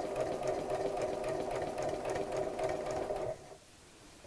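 Janome Memory Craft computerised sewing machine stitching through layers of cotton fabric at a steady, even pace, then stopping a little over three seconds in.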